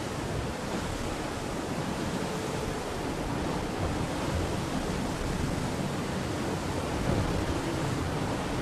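Steady rush of water and wind from an IMOCA 60 racing yacht sailing fast, at about 20 knots.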